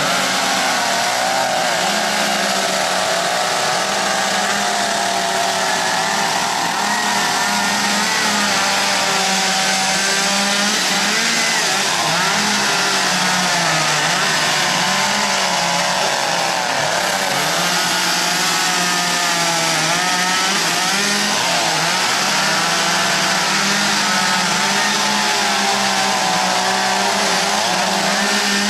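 Chainsaw running continuously, its engine speed rising and falling as it cuts into wood for carving.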